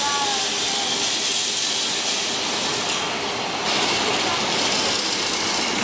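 Carris 'remodelado' electric tramcar running on street rails: a steady rattle and hiss of steel wheels on the track.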